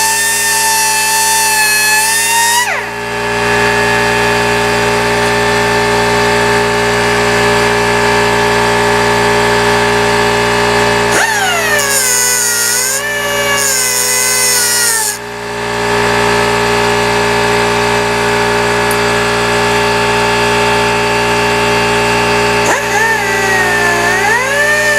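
Quarter-inch pneumatic die grinder with a cutoff wheel slicing through the cage of a Dana 44 carrier bearing. It makes a loud continuous whine that spins up near the start, and its pitch swings and drops as the wheel bites, again about halfway through and near the end.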